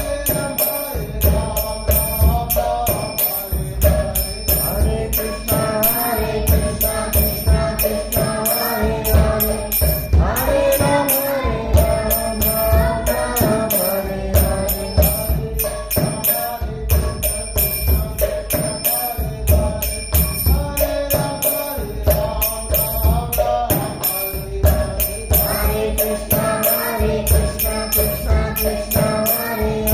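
Devotional chanting music: voices singing a mantra-like chant over a steady percussion beat with jingling metal percussion.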